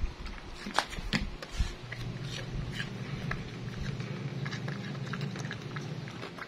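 A dog chewing and mouthing chunks of fruit in a stainless steel bowl: wet chewing and a run of sharp clicks, the loudest about a second in. A low steady hum sits under the middle part.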